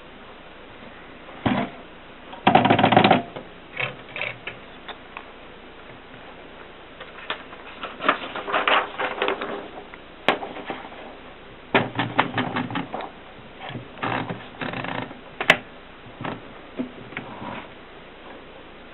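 Groma manual typewriter being typed on: keystrokes clacking in irregular runs and bursts, with a fast flurry of keys near the start and further groups of strokes through the rest.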